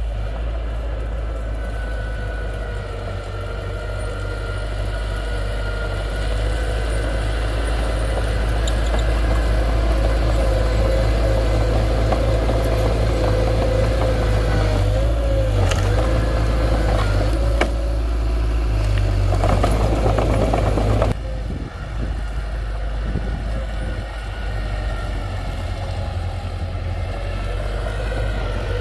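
Diesel engine of heavy earthmoving equipment running under load with a steady whine, growing louder, with metallic clatter in the middle. The sound drops off abruptly about three-quarters of the way through.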